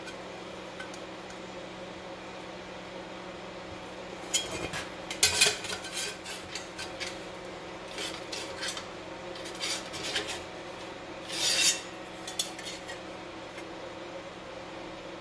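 Thin sheet-steel panel clinking, rattling and scraping against the steel rollers of a slip roll as it is handled and fed. The clatters are irregular, come in clusters from about a third of the way in, and include one longer scrape about three quarters through. A steady low shop hum runs underneath.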